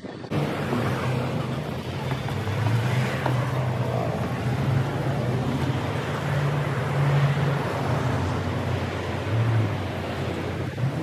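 Steady city road traffic: a continuous wash of passing car and truck engines, with a low engine hum that rises and falls.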